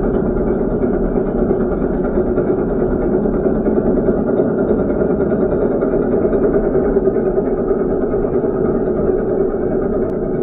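Heavy machine's diesel engine running steadily at an even speed.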